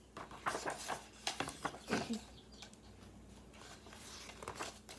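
Pages of a hardcover picture book being opened and turned by hand: a run of soft paper rustles and light taps, with a few more near the end.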